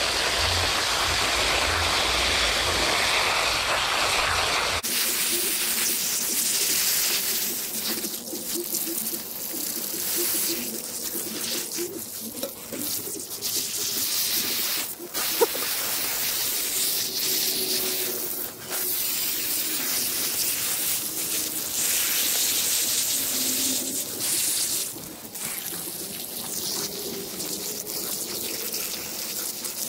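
Water running and splashing steadily in a backyard pond setting, with an abrupt change in the sound about five seconds in and a single sharp tap about fifteen seconds in.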